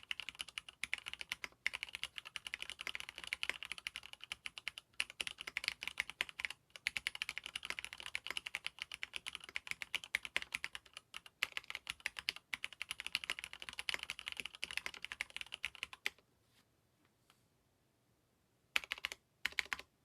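Fast typing on an mStone Groove T mechanical keyboard with lubed Cherry MX Red linear switches on an aluminium plate: a dense, rapid run of keystrokes. About four-fifths of the way through the typing stops for a couple of seconds, then a few more keystrokes come near the end.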